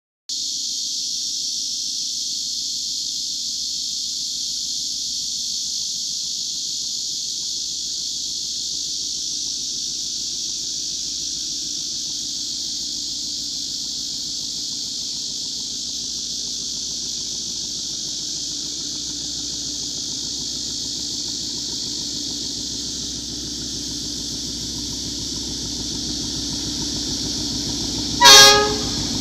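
A steady high hiss, with a diesel locomotive's low engine rumble growing louder over the last several seconds as it approaches; near the end the DF4BK locomotive gives one short, loud horn blast.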